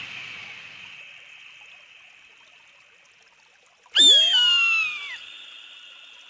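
A single loud eagle scream about four seconds in, lasting just over a second and falling in pitch. The tail of an earlier scream fades away at the start.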